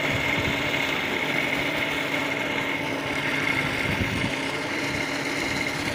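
Solar-powered electric water pump running steadily, a hum with a high whine, over water gushing from its discharge pipe into a pool.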